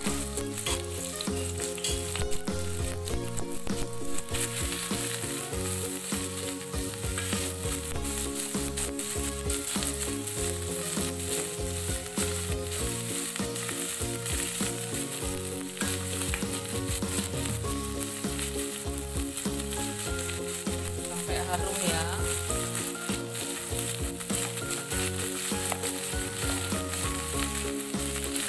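Sliced shallots, garlic and shrimp paste (terasi) sizzling in hot oil in a pan, stirred with a spatula near the end.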